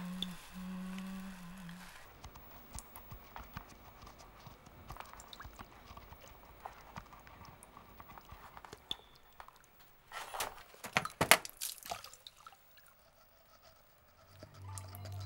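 A low hummed note slides down and holds, ending about two seconds in. Then come faint scattered ticks and rustles, and a cluster of sharp clicks and rattles from about ten to twelve seconds in. A low steady drone sets in near the end.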